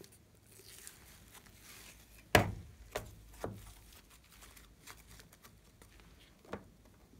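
A clay-decorated paper board is set down into a glass-rimmed slime tray with a sharp knock about two seconds in. A few lighter taps follow, along with soft crinkling as it is handled.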